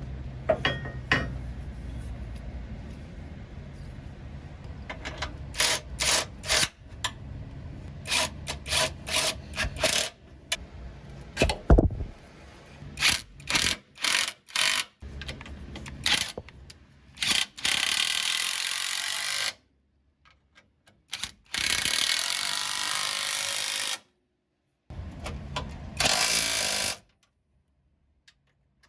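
Power tool noise during work on a van's sway bar bushing: many short bursts, then several longer steady runs of a second or two, each cutting off abruptly.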